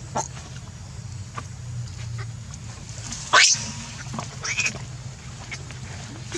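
A macaque gives a sharp, rising squeal about three seconds in, then a shorter squawk a second later, over a steady low hum.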